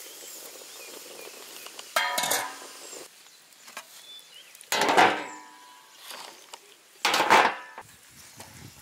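Metal cookware or utensils clanking three times, each strike ringing briefly, a few seconds apart.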